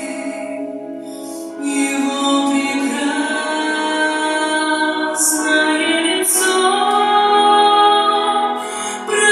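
A woman singing a slow song with musical accompaniment, holding long notes.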